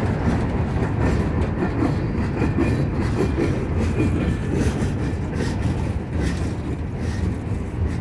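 Freight train's boxcars rolling slowly past, wheels clacking over the rail, with one boxcar making a rhythmic booming: boom, boom, boom, about twice a second.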